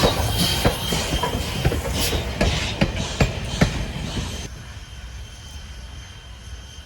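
Strasburg Rail Road excursion train rolling past on jointed track, its wheels clicking over the rail joints about every half second, with a thin high wheel squeal. The sound drops off sharply about four and a half seconds in.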